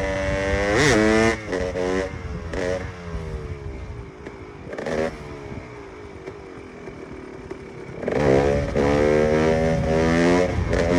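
KTM EXC 300's two-stroke single-cylinder engine revving on a ride: a sharp rev about a second in and a few short blips, then a quieter low-revving stretch. At about 8 s it opens up loudly under acceleration, with choppy throttle changes near the end.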